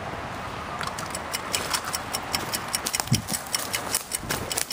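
Quick, uneven running footsteps crunching through dry leaves and twigs on a forest floor, starting about a second in.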